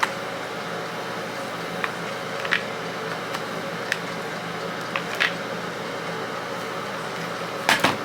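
Steady mechanical hum with a handful of short, sharp clicks scattered through it; the loudest clicks come as a quick pair near the end.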